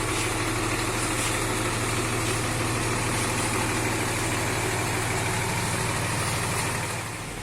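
Bus diesel engine idling steadily, a little quieter just before the end.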